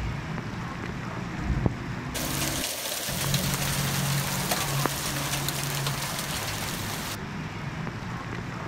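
Heavy rain pouring down, a steady hiss of downpour splashing on the ground, with a few sharp drop impacts and a low steady hum underneath.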